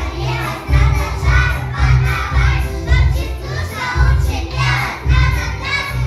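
A group of young children singing chastushki loudly in unison, half-shouted in the lively Russian folk-ditty style, over an accompaniment with a steady, pulsing bass beat.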